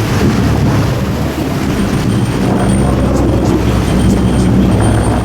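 Boat engines running steadily under the noise of wind and water, as the boat backs up on a hooked marlin; a deeper rumble comes in about two seconds in.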